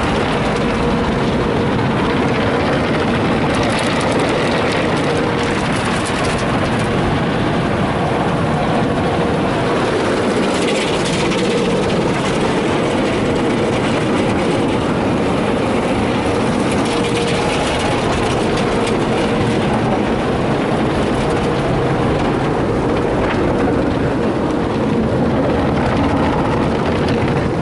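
Tunnel car wash brushes and water sprays working over an SUV, heard from inside the cabin as a steady, loud wash of spray and scrubbing, with a thin steady tone from the wash machinery running through it.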